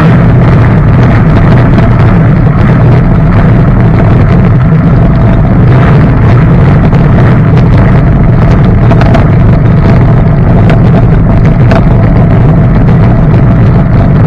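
Jon boat's outboard motor running steadily under way, loud and close, with wind buffeting the microphone.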